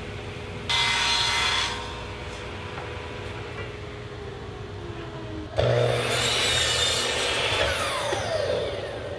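Power saw cutting scrap plywood: a short run of about a second near the start, then a longer cut that starts suddenly past the middle, its motor whine falling in pitch as the blade spins down near the end.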